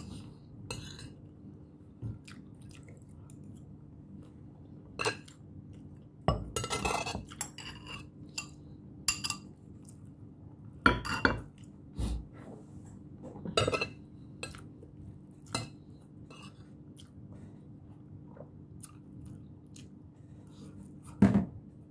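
Metal spoon clinking and scraping on a plate as food is scooped up, a dozen or so separate strokes at irregular intervals, with chewing between them. A faint steady hum lies underneath.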